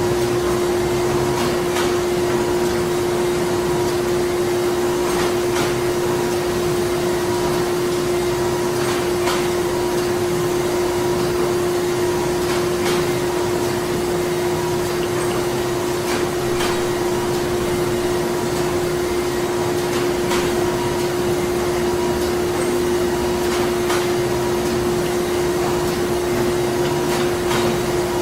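Printing-plant machinery running steadily: an even mechanical drone with one strong held tone and scattered faint clicks.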